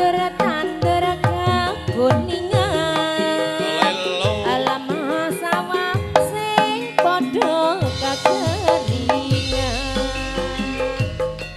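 Javanese gamelan ensemble playing a gending, driven by kendang hand drums whose strokes bend in pitch, with a woman singer (sinden) singing over sustained metallophone tones.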